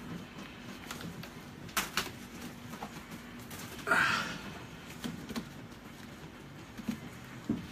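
Handling noises from a fiberglass mold shell being worked loose: two sharp knocks just before two seconds in and a short rushing scrape about four seconds in, with a few small ticks after. A faint low steady hum fades out about three seconds in.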